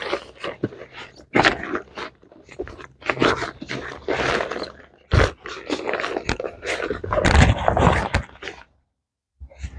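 Irregular rustling and crinkling of a packraft's black coated-fabric seat as it is pulled out of the hull and folded by hand, with a brief gap near the end.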